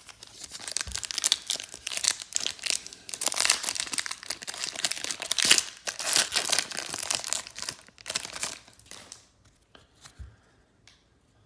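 Plastic wrapper of a Panini Hoops trading card pack being crinkled and torn open: a dense crackling rustle that dies away about nine seconds in.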